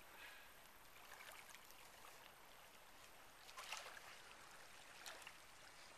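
Faint, steady rush of a shallow mountain stream running over stones, with a couple of brief louder noises about three and a half and five seconds in.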